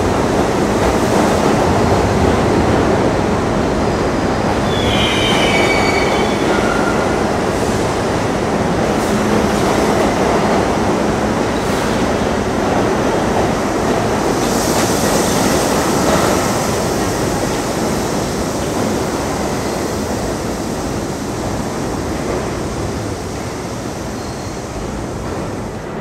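An old-stock New York City subway train rolls along the station platform, its steel wheels rumbling and rattling on the rails. Short, high wheel squeals sound about five to seven seconds in. The running noise slowly eases toward the end.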